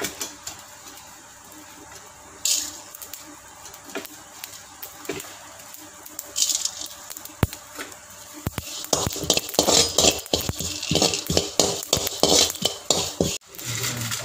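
Metal spoon scraping and clinking against a dry metal pan as cumin and fennel seeds are stirred while dry-roasting. The clicks and scrapes come scattered at first, then thicken into a quick run in the second half.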